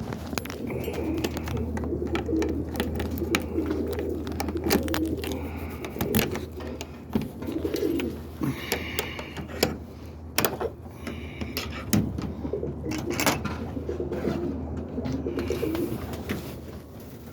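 Roller pigeons cooing continuously inside a small loft, with scattered sharp clicks and knocks.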